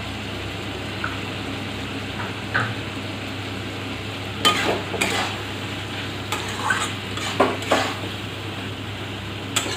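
Drumstick (moringa) and potato masala sizzling in a metal kadai while the ground spices are fried down. From about four seconds in, a metal spatula stirs and scrapes against the pan in a run of sharp strokes.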